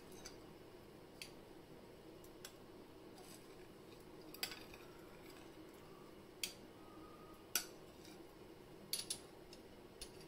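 A steel spoon clinking on glass, a few sharp clicks spread over several seconds, the loudest about three-quarters of the way through, as it is dipped into a small glass bowl of strawberry syrup and drawn against a tall glass. A faint steady hum underneath.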